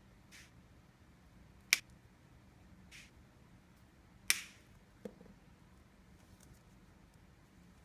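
Two sharp clicks about two and a half seconds apart, with a few softer scraping strokes around them and a light dull knock near the end.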